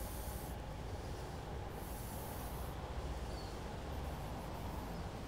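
German shepherd detection dog sniffing at wooden boxes during a drug-scent search, with two spells of rapid sniffing, one at the start and one about two seconds in, over a steady low outdoor rumble.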